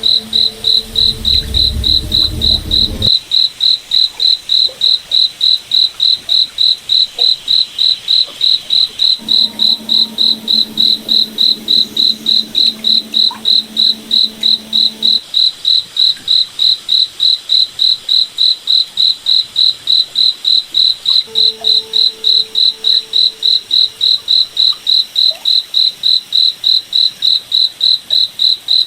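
Cricket chirping at a steady, even pace, about three high chirps a second, without a break.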